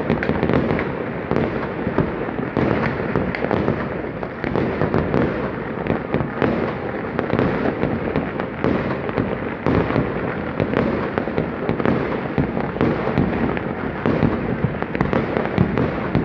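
Many fireworks going off at once in a dense, unbroken barrage of bangs and crackles.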